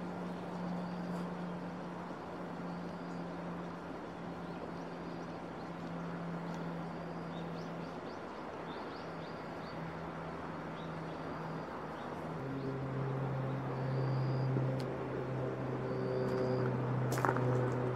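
Outdoor ambience dominated by a steady low vehicle engine hum, which drops in pitch and grows louder about twelve seconds in. Short high chirps repeat every second or two over it.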